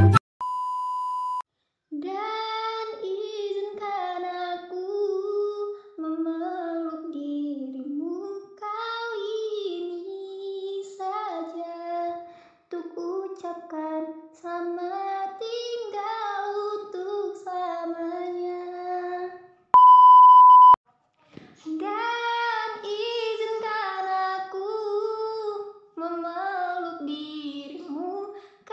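A woman's voice singing a slow melody unaccompanied, holding and sliding between notes. A steady high beep lasting about a second sounds at the very start, and another, louder one cuts in about two-thirds of the way through.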